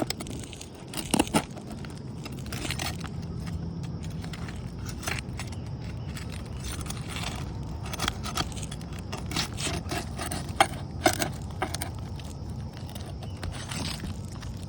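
Scraping and scattered sharp metallic clicks of hand work on old 3-tab asphalt shingles as the nails holding them are found and worked at, over a steady low rumble.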